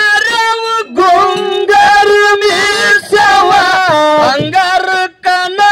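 A man singing a Kannada dollu folk song (dollina pada) solo into a microphone, in long held notes that bend up and down, with short breaks between phrases.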